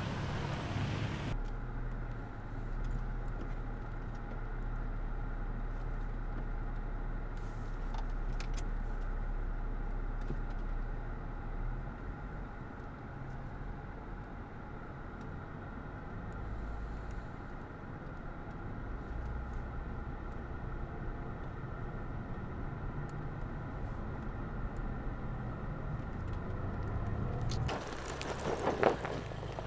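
Steady, low, muffled rumble of an SUV's engine and tyres as it drives slowly up a dirt trail, heard from inside the cabin. Near the end it gives way to louder, rougher outdoor noise with a sharp knock.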